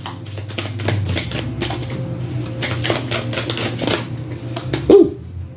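A tarot deck being shuffled by hand: a dense, irregular run of small card clicks and slaps, with a short louder sound about five seconds in.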